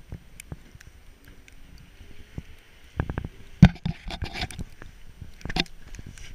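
Irregular knocks, scuffs and thumps of handling noise from a camera carried by someone walking on a snowy pavement, over light wind on the microphone. The loudest thump comes about three and a half seconds in.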